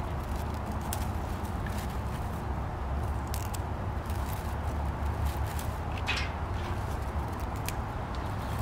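Leather leaf fern fronds and stems rustling and ticking faintly as they are handled and pushed into a glass vase, over a steady low outdoor rumble.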